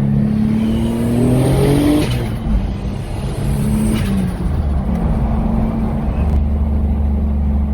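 Turbocharged 3.8-litre V6 of a Holden VT Commodore under acceleration: the engine note rises, drops at a gear change, rises again and drops at a second change, then settles into a steady drone as the car cruises.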